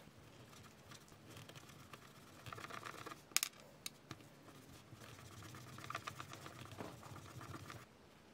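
Small hand-work sounds: two bouts of scraping and rubbing full of small clicks, with one sharp click about three and a half seconds in.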